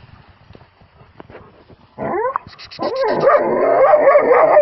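A dog barking and yelping at a porcupine holed up in a burrow, in loud, long, wavering cries that start about two seconds in.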